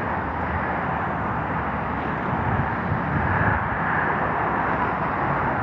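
Steady rushing wind noise of a snowstorm, with low rumbling buffets on the microphone.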